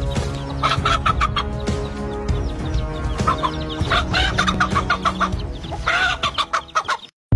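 A hen clucking and squawking in repeated sharp bursts as she fights off an attacking eagle, over background music with long held notes. The sound cuts off abruptly near the end.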